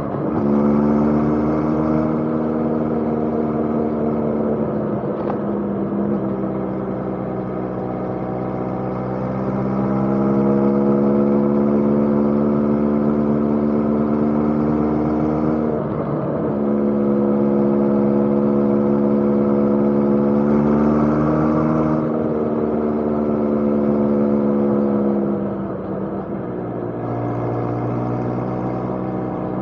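Motorcycle engine running steadily on the road, its pitch easing down and climbing back a few times as the throttle is closed and reopened.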